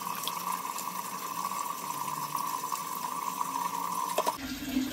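Spiced water for dal bubbling in an aluminium pot on the stove, with a steady hiss holding a high even tone. A short click comes about four seconds in.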